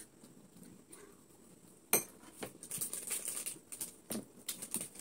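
Cutlery clinking sharply once against a plate about two seconds in, followed by scattered light clicks and rustling of eating at the table.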